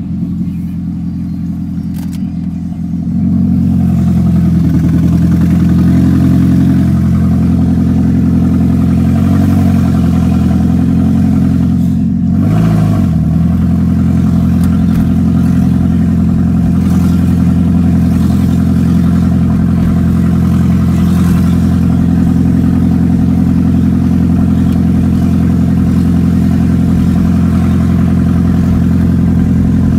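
2005 Toyota Prius's 1.5-litre four-cylinder petrol engine running loud through an exhaust left open where the catalytic converter has been cut out, heard from inside the cabin while driving. The drone steps up sharply about three seconds in, dips briefly around twelve seconds, then holds steady.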